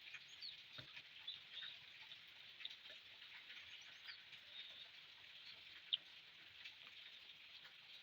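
Faint close-miked eating sounds: soft, wet clicks and smacks of chewing a meal of rice and fish curry, with one sharper click about six seconds in.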